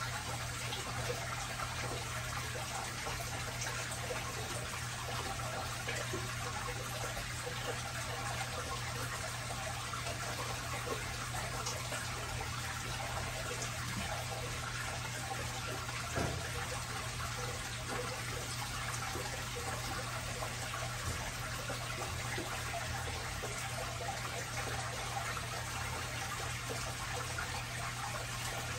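Steady trickle of circulating aquarium water with a constant low hum underneath, and a single soft knock about halfway through.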